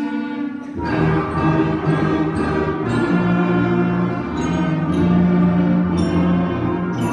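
A beginning middle-school concert band playing a holiday piece; the lower instruments come in about a second in and fill out the sound.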